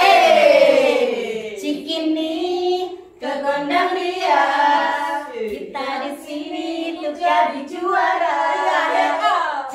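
A group of women singing together in unison, a lively chant in short phrases. It opens on a long falling note, with brief pauses between lines.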